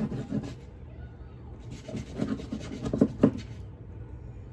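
Knife sawing back and forth through cooked brisket on a cutting board, in two spells of strokes, with two sharper knocks against the board about three seconds in.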